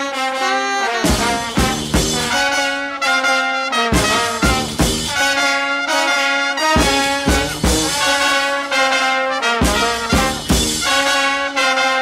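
Upbeat music with brass horns over a steady drum beat.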